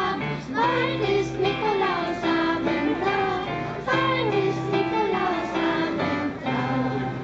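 Children's choir singing a song together, with instrumental accompaniment holding steady notes underneath.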